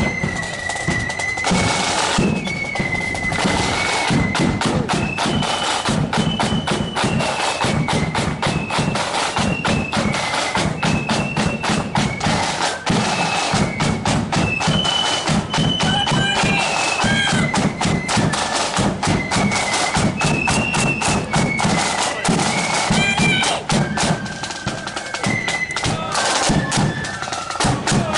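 Marching flute band playing a tune: flutes carry a high melody over rapid snare drum rolls and the steady beat of a bass drum.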